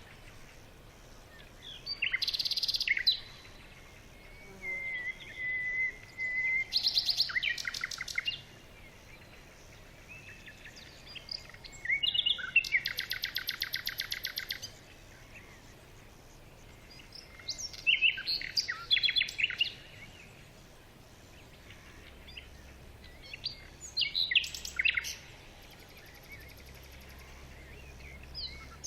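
Birds calling in bursts of rapid trilled chirps every few seconds, with the longest, evenly pulsed trill about halfway through and a short steady whistle early on.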